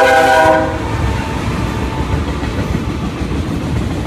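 BNSF freight locomotive's air horn finishing its blast, cutting off under a second in, then the steady rumble and wheel noise of the freight train's autorack cars rolling past.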